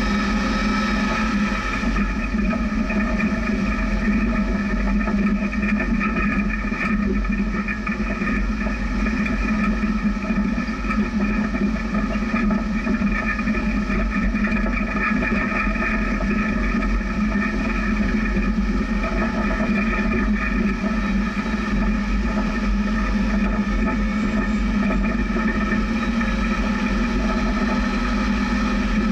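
Jeep engine running at a steady pitch, with drivetrain and rough-ground noise, while driving slowly off-road.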